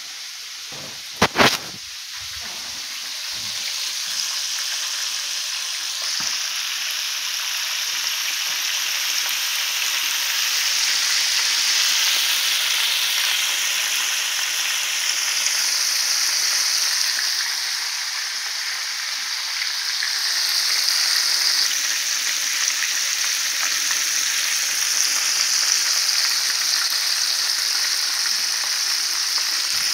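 Flour-dredged chicken drumsticks deep-frying in a pan of hot oil, a steady bubbling sizzle that grows louder a few seconds in. There are two sharp clicks about a second in.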